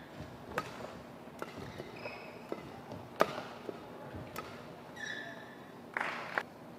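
Badminton rally: racket strings striking the shuttlecock in sharp cracks a second or so apart, the loudest about three seconds in, with players' shoes squeaking on the court floor. A short burst of noise comes near the end.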